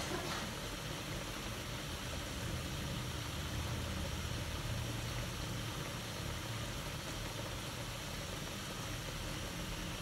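Tocino simmering in water in an aluminium wok on a gas burner: a steady bubbling over the burner's low, even hiss, as the water boils off before the meat fries.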